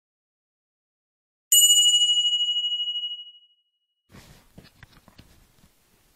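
Notification-bell sound effect from a subscribe-button animation: one bright ding about a second and a half in, ringing out and fading over about two seconds. A few faint clicks follow near the end.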